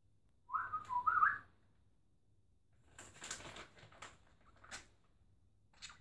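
Budgerigar giving two short whistled notes about half a second in, then a burst of scratchy chatter a few seconds later and a single brief chirp near the end.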